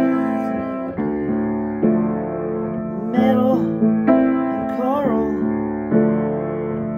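Upright acoustic piano played in chords, struck about once a second, each chord ringing and fading before the next.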